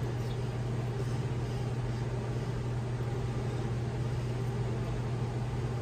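A steady low hum under a constant hiss of background noise; nothing else stands out.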